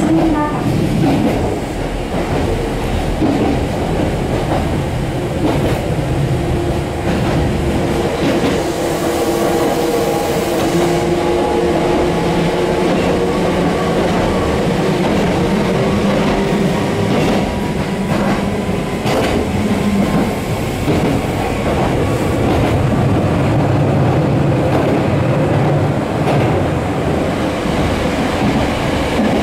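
Former Hankyu electric railcar heard from inside while running: traction motors whine in several steady tones over the rumble of wheels on rails, with an occasional click from the track.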